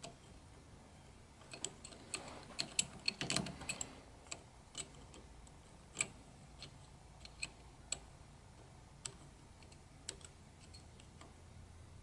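Faint, irregular metallic clicks of a disc-detainer pick turning the rotating discs inside an old Polhem padlock. A quick cluster of clicks comes about two to four seconds in, then single clicks every second or so.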